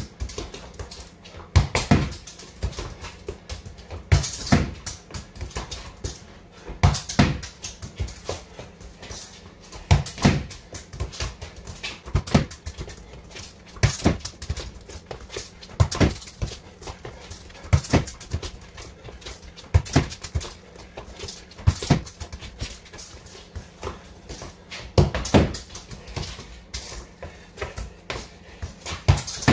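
Football kicked repeatedly against a garage wall: a kick and the thud of the ball striking the wall, often in a close pair, about every two seconds, with lighter touches and footsteps on the concrete floor in between.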